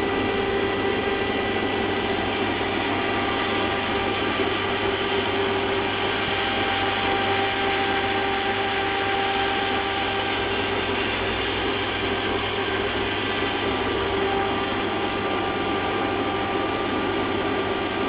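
Steady running machinery: a constant hum with a held whine over an even hiss, never changing in speed or level.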